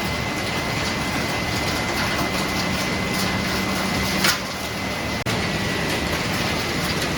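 Refrigerator recycling line machinery running: a steady, dense industrial din with a low hum and a thin high whine, and one sharp clank about four seconds in.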